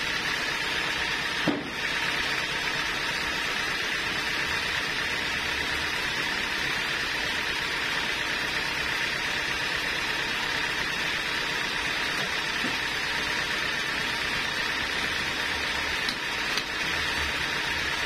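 Band sawmill running steadily with the blade spinning free between cuts: a constant mechanical hum topped by a high whine, with one short knock about a second and a half in.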